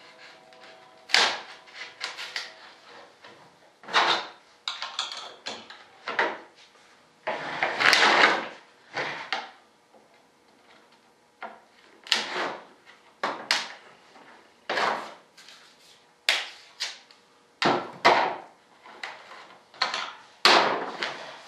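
Irregular sharp knocks and taps, about a dozen strong ones, with a few longer scraping noises, as a mold is worked apart to free a vertical stabilizer part.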